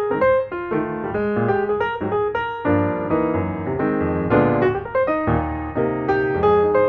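Background piano music: a run of quick notes played over lower chords.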